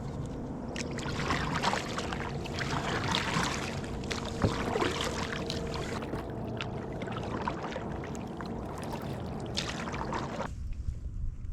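Water sloshing and splashing at the side of a kayak, with many small knocks and clatter, stopping suddenly about ten and a half seconds in.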